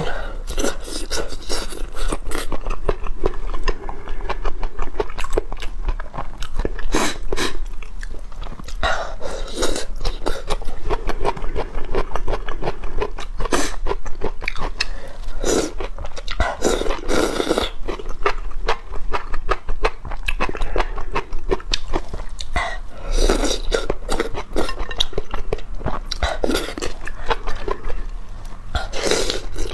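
Close-miked eating of noodles from a bowl of broth: wet chewing and mouth clicks, with louder slurps every few seconds.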